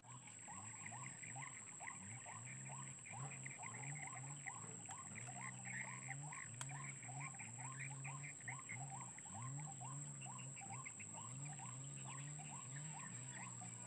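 White-breasted waterhen (ruak-ruak) calls: a faint, rapid train of repeated notes, about three a second, going on steadily over a thin, steady high whine.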